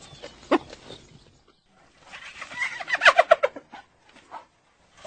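Hyena calling: one short call about half a second in, then, after a brief pause, a fast run of short, clipped pitched notes, like a cackling laugh.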